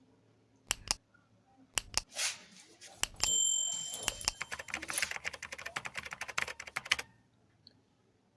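Hair clipper blade being handled and cleaned: a few sharp clicks and knocks, then a quick run of clicking and rattling for about three seconds that stops suddenly about seven seconds in.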